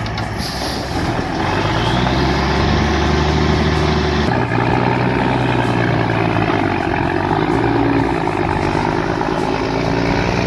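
Heavy diesel engine running under load, its pitch rising about a second and a half in and shifting again about four seconds in.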